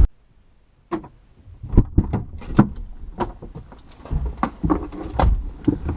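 Irregular knocks, clicks and low thuds of a vehicle door and people climbing out, starting about a second in after a brief quiet.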